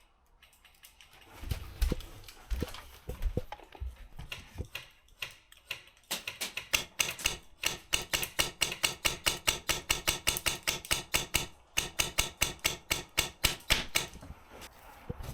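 Airsoft gun firing a long string of quick shots, about six or seven a second, with a short break near the end. A few seconds of scattered thuds and knocks come first.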